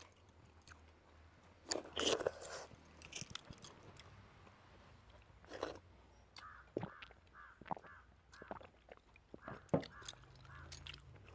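Quiet eating sounds from two people eating rice by hand: scattered chewing, lip smacks and soft clicks of fingers working food on plates. A faint short series of repeated calls runs through the second half.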